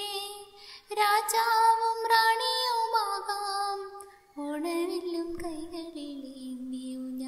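Soundtrack song: a high singing voice holding long, slow, gliding notes, with short breaks between phrases about a second in and about four seconds in.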